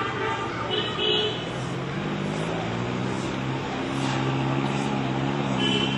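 A motor vehicle's engine running, its pitch climbing from about two seconds in and then holding steady, over a steady outdoor hiss.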